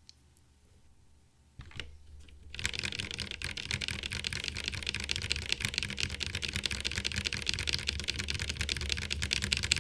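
Mechanical keyboard with Cherry MX Black Hyperglide linear switches, lubed with Krytox 205G0 and filmed, being typed on. A few single keystrokes come first, then from about two and a half seconds in a fast, dense stream of keystrokes.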